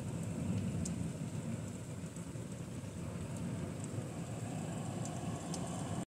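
Freezing rain falling: a steady noise over a low rumble, with scattered faint ticks of drops striking.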